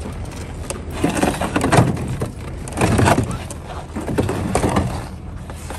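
Large blocks of ice scraping and grinding as they are shoved across the snowy wooden bed of a truck, in three pushes a second or so apart.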